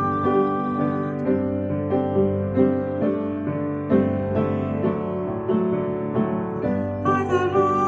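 Piano playing a slow, gentle song accompaniment in steady chords, with a long held high note at the start and again near the end.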